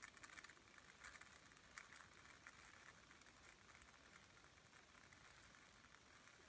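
Foley rain effect being recorded: a faint, irregular patter of light drop-like ticks, busiest in the first couple of seconds and then thinning out.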